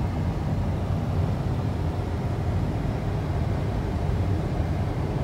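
Steady low rumble of road and engine noise inside a car cabin cruising at highway speed.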